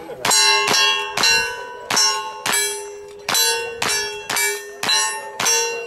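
A string of about ten gunshots in quick succession, roughly one every half second, each followed by the bright ringing clang of a steel target being hit.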